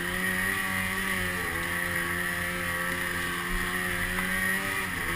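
Snowmobile engine running steadily as the sled is ridden, heard from on board, its pitch wavering a little with the throttle.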